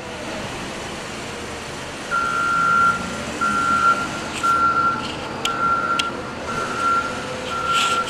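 Wheel loader backing up: its reversing alarm beeps about once a second, starting about two seconds in, over the steady running of its engine.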